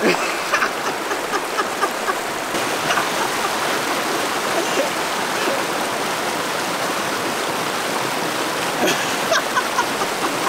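Mountain stream rushing over rocks, a steady rush of water splashing around a person sitting in the current.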